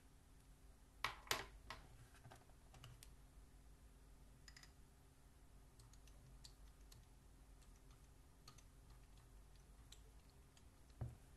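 A few sharp clicks and light taps from things being handled on a desk, bunched about a second in and then sparse, with one dull knock near the end, in a near-silent room.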